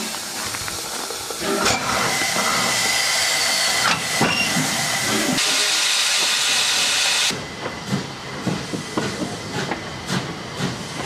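Steam locomotive letting off a loud, steady hiss of steam for several seconds, which cuts off abruptly about seven seconds in; after it come irregular low knocks and rumbles of the moving train.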